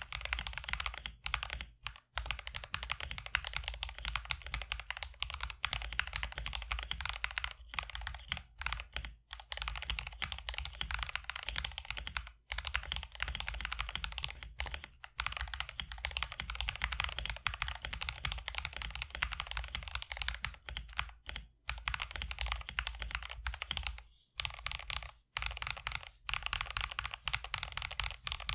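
Continuous fast typing on a mechanical keyboard fitted with Wuque Studios WS Red linear switches, stock and factory lubed, with a few brief pauses between bursts.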